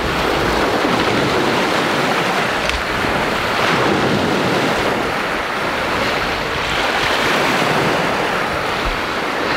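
Lake Superior surf breaking and washing up the beach in a steady rush, mixed with wind buffeting the microphone.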